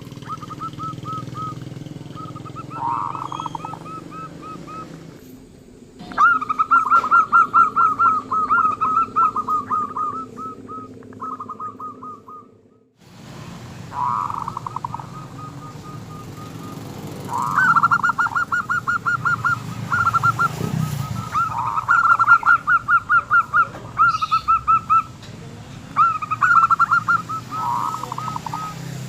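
Local zebra dove (perkutut) cooing: repeated phrases of quick, evenly spaced coo notes, some phrases lower and rougher. A higher, fainter bird chirps between them over a steady low hum. The sound drops out for about a second near the middle.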